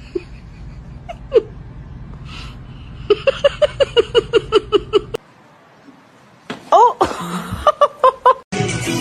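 A person laughing in a fast run of short, evenly spaced bursts over a steady hum, followed by a few more short vocal sounds; music starts near the end.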